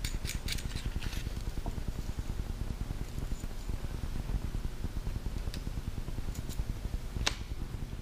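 Quick small metallic clicks for about the first second as a nut is worked off by hand, then a steady low background hum with a few single faint clicks.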